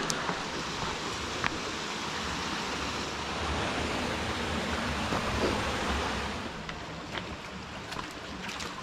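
Santa Paula Creek's water rushing, a steady hiss.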